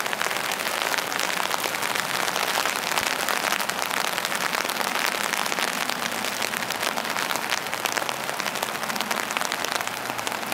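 Steady rain, a dense patter of drops hitting the ground.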